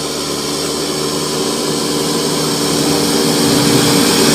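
A small motor running steadily with a hum and hiss, slowly getting louder.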